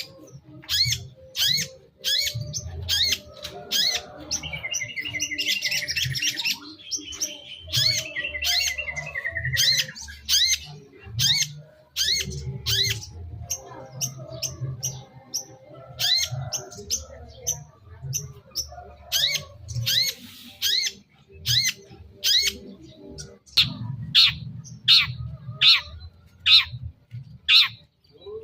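Long-tailed shrike (cendet) calling: a string of short, harsh notes that each sweep down in pitch, about one to two a second, with a quicker chattering run early on.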